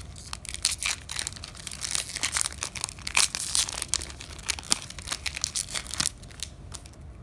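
Foil wrapper of a Yu-Gi-Oh Soul Fusion booster pack crinkling and tearing as it is handled and ripped open, a rapid run of sharp crackles that thins out near the end.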